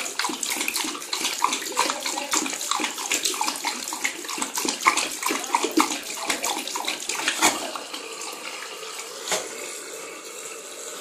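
Water running from a bidet tap while a Boxer dog laps at the stream, a quick series of wet laps. The lapping stops about three-quarters of the way through and the tap keeps running.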